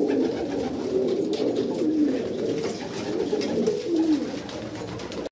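Domestic pigeons cooing in a loft, several birds at once in overlapping low, rolling coos that go on without a break.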